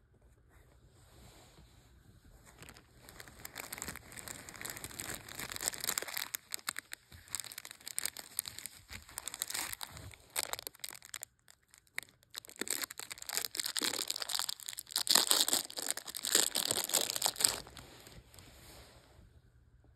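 Paper towel wrapping rustling and crinkling as it is handled and unfolded by hand to unwrap a stone, in a long run of crackles with a short break just past the middle, loudest near the end.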